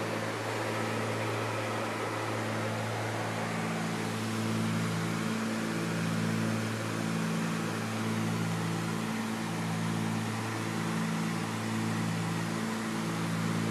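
Cabin noise of a Cessna 310Q twin in flight: the steady drone of its two six-cylinder piston engines and propellers over a hiss of airflow, throbbing in a slow regular beat about once a second.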